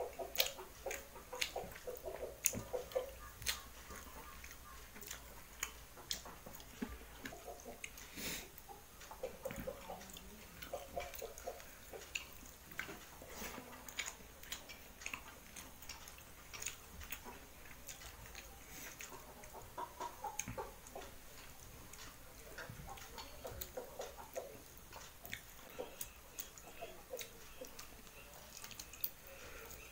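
A person eating rice and fish with his fingers: chewing and wet mouth smacks, with many irregular sharp clicks as the fingers pick over fish bones and gather rice on a metal plate.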